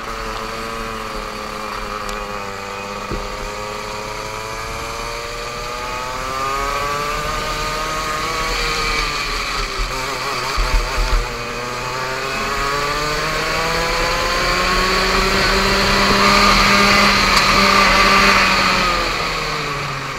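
Go-kart engine running on track, heard from a helmet camera, its pitch falling and climbing with the throttle through corners and straights, rising longest in the second half before dropping near the end. Low wind rumble on the microphone underneath, and a few short thumps about halfway.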